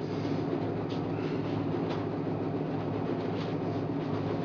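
Steady low mechanical hum of a machine running, with a few faint light taps.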